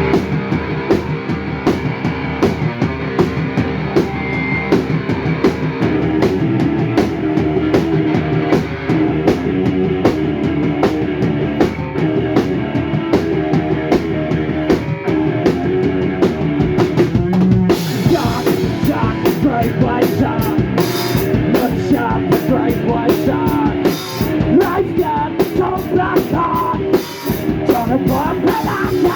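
Live rock band playing an instrumental passage, the drum kit prominent with steady bass drum and snare hits under the band. About two-thirds of the way in the sound turns brighter and fuller as more cymbals come in.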